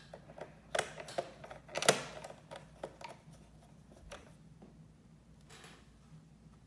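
Sharp clicks and taps of small screws and a screwdriver against a laptop's plastic case, two louder knocks about one and two seconds in, then lighter ticks and a faint scrape.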